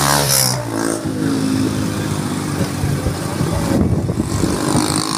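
Small motorcycle running while being ridden in town traffic, with wind buffeting the microphone. A vehicle horn's steady tone bends down and fades out in the first second.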